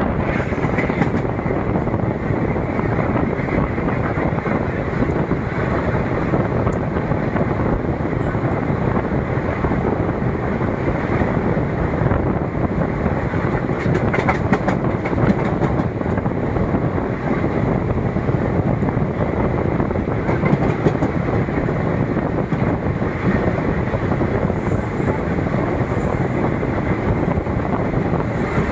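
Two Indian passenger trains passing each other at speed on adjacent tracks, heard from the open doorway of one. A steady, loud rumble and clatter of steel wheels on rail runs throughout as an express of red LHB coaches, hauled by an electric locomotive, rushes by.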